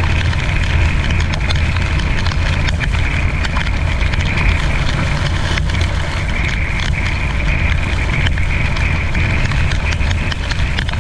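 Semi-truck cab interior at highway speed on a wet road: a steady low drone of engine and road with a hiss of tyres on wet pavement, and scattered crackling ticks of raindrops hitting the windshield.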